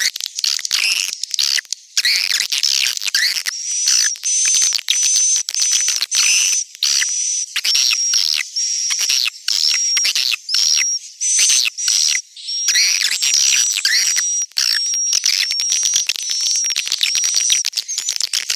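Swiftlet lure call (suara panggil walet): a dense run of rapid clicking chirps and high, thin twittering notes, repeated with short breaks.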